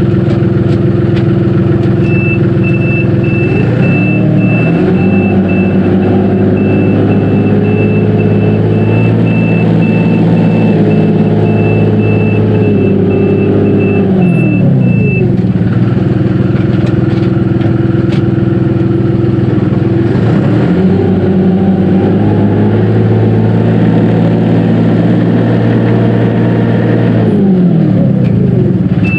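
Dongyang TX653 tractor's diesel engine running, revving up and holding for several seconds, dropping back, then revving up again. A reverse warning beeper sounds about twice a second during the first run-up, signalling reverse gear engaged.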